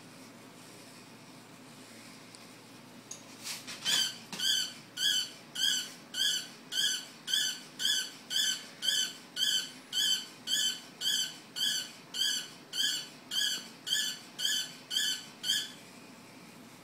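Battery-powered toy robot dog giving a long run of short, high electronic yaps, about two a second, starting about four seconds in and stopping near the end, after a few clicks.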